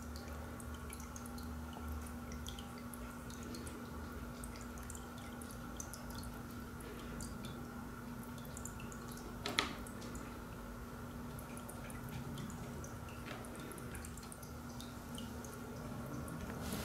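Plastic pet drinking fountain running: its small pump hums steadily while water trickles and drips from the flower-shaped spout, with one louder splashy tick about halfway through.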